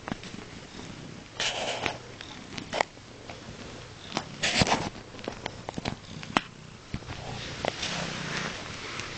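Chinchilla cat purring, a steady low rumble. Two short bursts of hissy noise come about one and a half and four and a half seconds in, with scattered small clicks.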